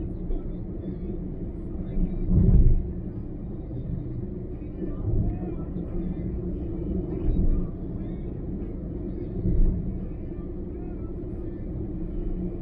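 Car driving on a highway: a steady low rumble of road and engine noise that swells briefly every two or three seconds, the loudest swell about two and a half seconds in.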